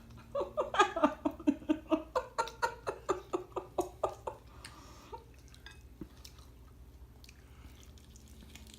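A person laughing in a long run of quick pitched 'ha' pulses, about four or five a second, that fades out about four seconds in; after it only faint scattered clicks.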